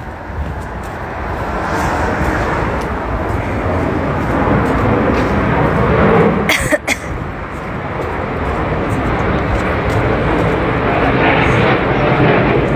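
Loud, steady rumbling noise of a city street picked up by a phone being carried along, with one sharp knock about six and a half seconds in.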